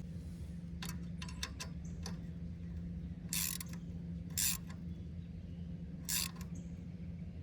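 Socket ratchet clicking while turning the adjustment nut on a well pump pressure switch: a quick run of clicks, then three longer rasping strokes. A steady low hum runs underneath.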